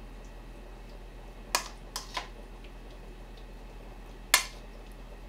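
A spoon clinking against a small glass bowl while mixing minced beef in its marinade: a clink about a second and a half in, two more close together near two seconds, and a louder one near the end, over a steady low hum.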